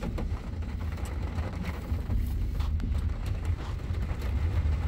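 Car on the move: a steady low rumble of road and engine noise, with a few faint knocks.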